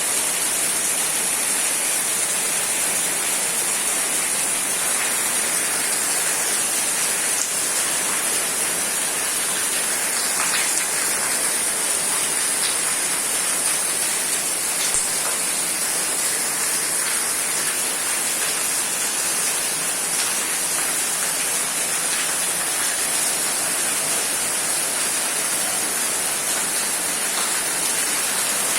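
Steady rain falling, an even hiss with a few faint taps of single drops.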